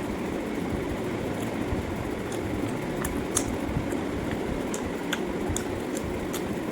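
Eating sounds: wet chewing and lip-smacking clicks, scattered irregularly over a steady background noise.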